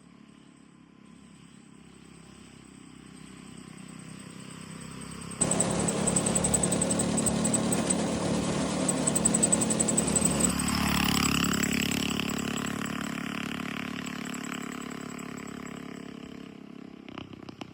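212cc single-cylinder go-kart engine running, faint at first, then suddenly much louder about five seconds in. Around ten seconds in its pitch rises as it revs, and the sound then fades slowly.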